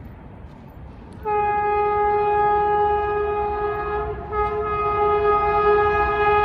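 WAP-7 electric locomotive's horn sounding a long, steady blast that starts about a second in, breaks off for a moment about four seconds in, and then carries on, as the train approaches.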